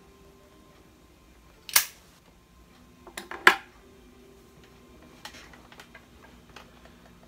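Pipe lighter handled: two loud sharp clacks about a second and a half apart, with a few small clicks just before the second and faint clicks later on.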